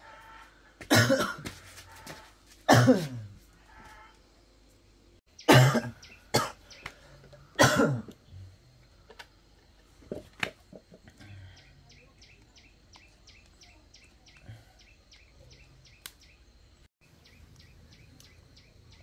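A person coughing hard, five loud coughs in the first eight seconds. After that, faint rapid ticking at about four a second.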